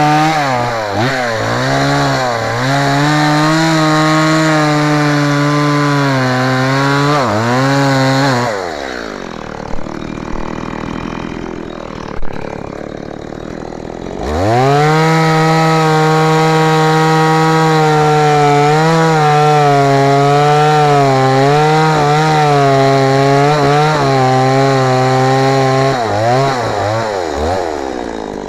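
STIHL MS 170 two-stroke chainsaw cutting wood at high revs, its pitch dipping again and again as the chain bites. About eight seconds in it drops to idle, with two short knocks. Around fourteen seconds in it revs back up and cuts again for about twelve seconds, then eases off near the end.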